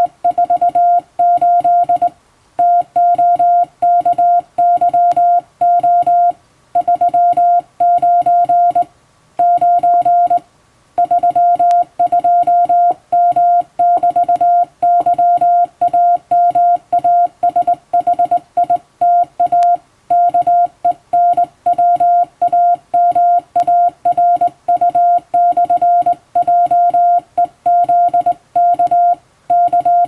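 Morse code sent by hand on a straight telegraph key: a steady tone of about 700 Hz keyed on and off in dots and dashes, with short gaps between letters and a few longer pauses, spelling out an English practice telegram.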